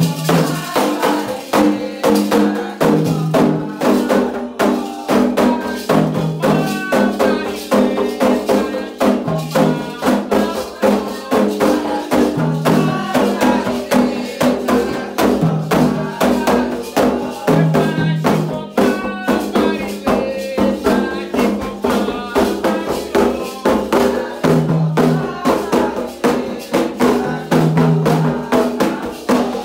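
Candomblé ritual music: hand drums and rattles beating a fast, steady rhythm under chanted singing.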